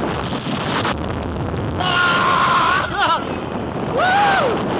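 Roller coaster ride heard from a rider's seat: a steady rush of wind on the microphone with the train's rumble, over which riders scream: a long held scream about two seconds in, a short wavering one around three seconds, and a scream that rises and falls near the end.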